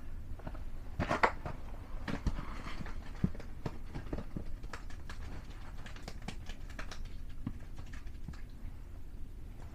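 Irregular taps, knocks and clicks of hands handling a freshly caught perch and fishing tackle, with a few louder knocks in the first three seconds.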